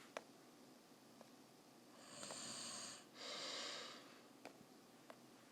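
Faint breathing close to the microphone: two hissy breaths of about a second each, one right after the other, about two to four seconds in, with a few light clicks scattered through.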